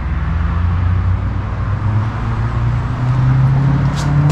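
A motor running with a steady low hum whose pitch rises a little about three seconds in, with a short click about four seconds in.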